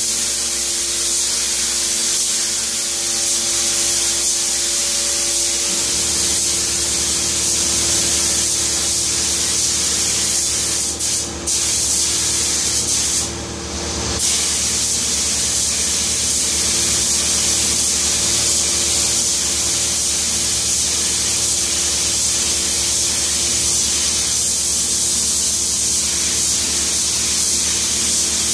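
Compressed-air gravity-feed spray gun hissing steadily as it sprays paint onto a kitchen cabinet. The hiss breaks off twice briefly about halfway through. A steady low hum comes in underneath about six seconds in.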